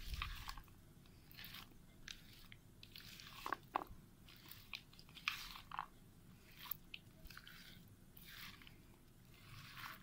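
Spatula stirring a mayonnaise-dressed salad of macaroni, shredded cabbage, apple and banana in a bowl: faint, irregular wet strokes through the chunky mix, about one every half second to second.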